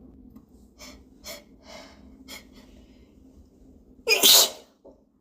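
A person's hitching sneeze: four short, catching breaths, then one loud sneeze about four seconds in.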